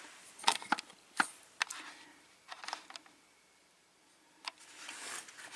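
Scattered light metallic clicks and taps of a Schlage lock being handled and taken out of a vise.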